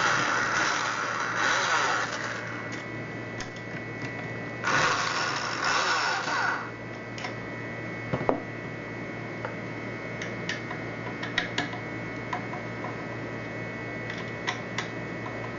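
Screws being driven into a knob lockset's inner rose with a screwdriver: two runs of about two seconds each, then a few light clicks and taps of handling.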